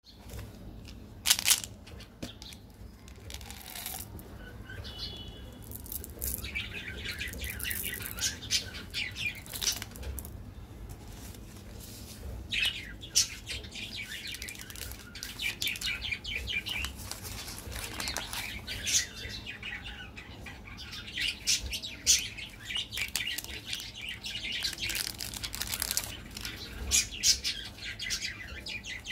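Plastic and foil candy wrappers crinkling and rustling as chocolate bars are handled and unwrapped, in irregular crackles with a few sharper tearing snaps.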